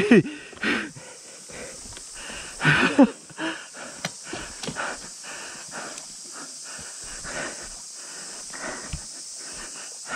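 Heavy, rhythmic panting right at a helmet microphone, a breath about every half second, from a dirt-bike rider out of breath on a steep hill climb. A short, loud vocal grunt sliding down in pitch comes about three seconds in.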